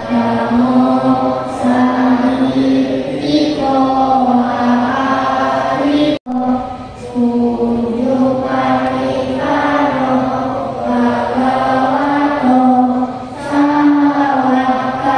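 A group chanting Buddhist devotions in unison on a near-monotone, with small steps in pitch and short breaks between phrases. The sound drops out for an instant about six seconds in.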